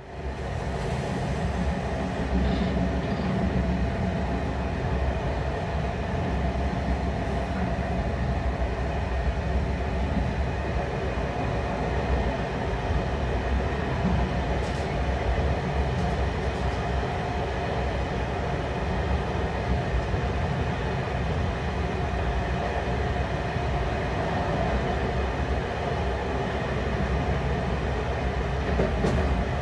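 Passenger train hauled by a TCDD DE 24000 diesel-electric locomotive running at a steady speed, heard from a carriage window: a steady mix of locomotive engine and wheels on the rails with a faint steady tone in it. The sound fades in right at the start.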